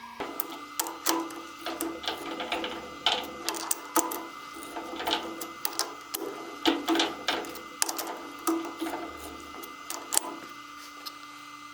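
A machine tool running with a steady hum, with irregular sharp clicks and light knocks throughout.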